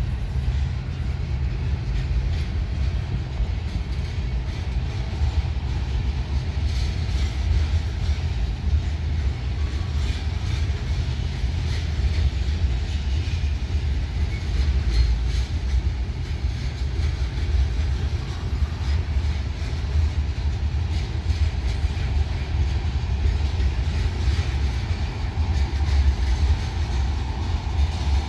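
Covered hopper cars of a sand train rolling past: a steady low rumble of steel wheels on rail, with scattered clicks.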